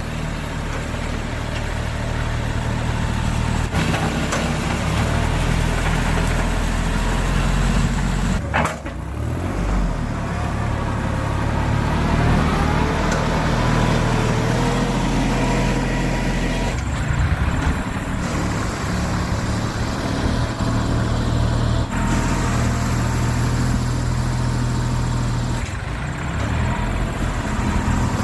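Kubota compact tractor's diesel engine running steadily while working a box blade, its pitch and loudness shifting abruptly a few times.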